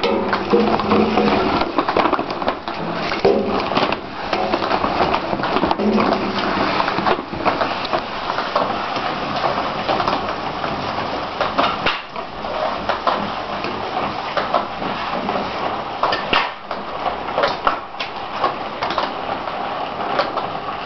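Homemade firewood conveyor running: a bicycle chain with paddles drawn up a plastic sewer-pipe trough by a garage-door-opener motor, rattling and clattering steadily with many sharp clicks as pieces of firewood knock along the trough.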